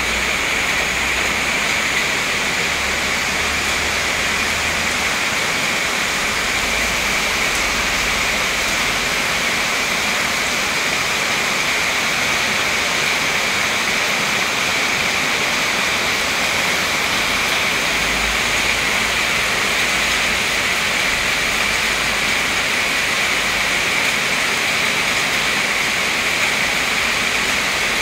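Heavy rain pouring steadily on trees, leaves and paving: a dense, even hiss. Gusts of wind add low rumbles now and then.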